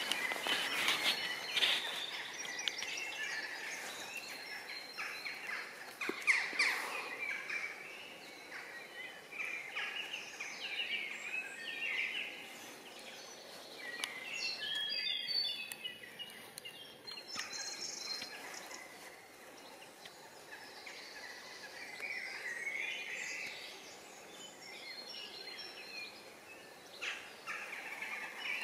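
Several songbirds singing and chirping throughout, over a faint steady outdoor background, with a few short rushes of noise, the loudest about six seconds in.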